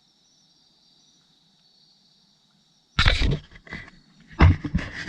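Insects chirping in a faint, steady, high trill; about three seconds in, loud rustling and knocking noises break in and drown it out.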